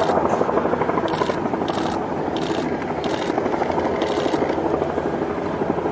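Mercedes Formula One car's turbocharged V6 hybrid engine idling with a fast, steady, rough buzz.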